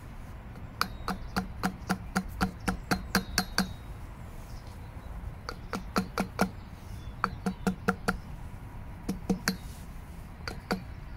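Fork leg from a 2008 Honda Deauville being worked by hand, giving runs of quick light knocks, about four to five a second, with short pauses between the runs.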